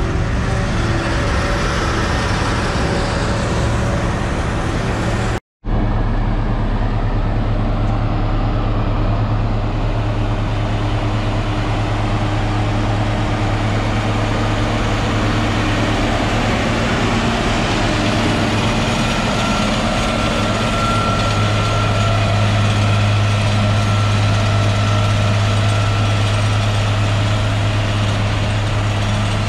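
John Deere tractor's diesel engine running steadily under load, working forage-harvesting equipment, with a strong low hum. The sound cuts out completely for a moment about five seconds in, then carries on.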